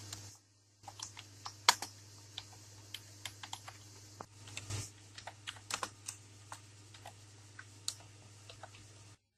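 Typing on a computer keyboard: irregular key clicks over a steady low hum and hiss. It cuts off suddenly near the end.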